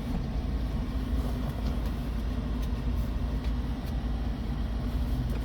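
A car's engine running, heard from inside the cabin as a steady low rumble.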